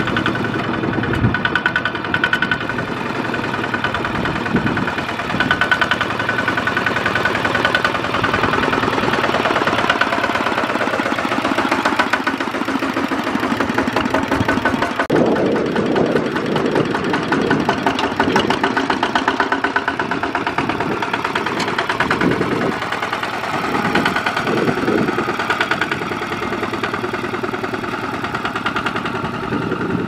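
Single-cylinder diesel engine of a Kubota ZT155 two-wheel walking tractor running under load with a fast, even beat as it pulls a trailer of rice sacks.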